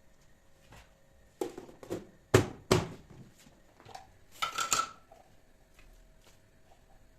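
Kitchenware being handled: four clacks as things are set down, the last two loudest, then a short scrape with a faint ring about four and a half seconds in.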